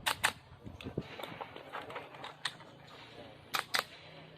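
Airsoft pistol shots in quick pairs: two shots about a fifth of a second apart near the start and another pair about three and a half seconds in, with a few fainter single clicks between.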